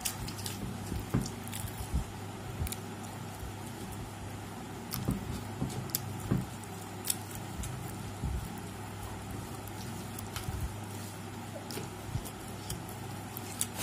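People eating biryani with their hands: scattered soft clicks and taps of fingers mixing rice and meat on plates, with chewing. A steady low hum runs underneath.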